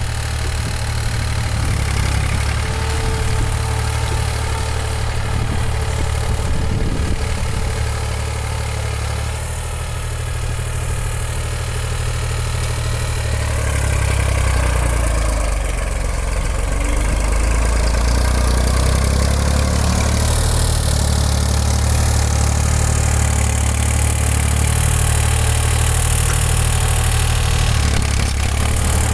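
Massey Ferguson 235 tractor's three-cylinder diesel engine running steadily at low speed with the air filter removed, making a strange-sounding intake noise. It gets a little louder about halfway through.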